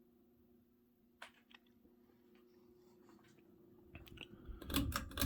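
Stamped-steel motor of a 42-inch hugger ceiling fan running on medium with a slight, steady hum. A single click comes about a second in, and near the end there is a quick run of sharp clicks and rattles.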